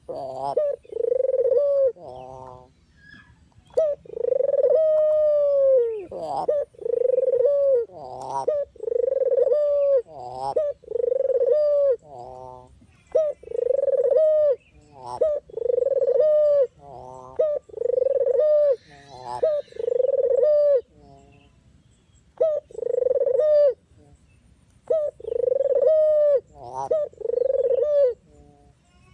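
Puter dove (a collared dove) cooing over and over, about one coo a second, some coos broken into quick rolling trills, with a short pause near the end.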